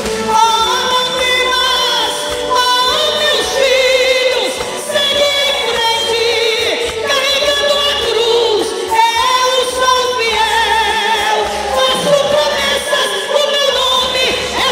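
A woman singing a Portuguese gospel hymn live into a microphone over instrumental accompaniment, holding long notes with a wavering vibrato.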